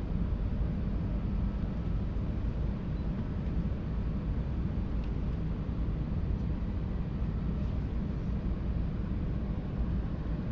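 Shinkansen train running slowly on a depot track, a steady low rumble.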